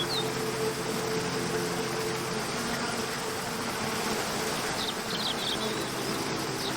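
Steady rush of a waterfall under a soft, sustained background music drone, with a few brief high bird chirps right at the start and again about five seconds in.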